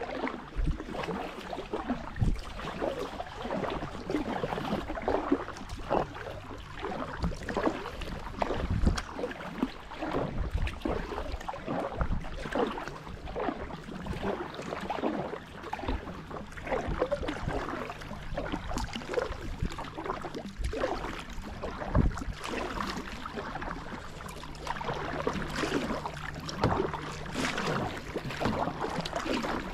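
Double-bladed kayak paddle dipping into calm stream water, stroke after stroke, with irregular splashes and water dripping off the blades.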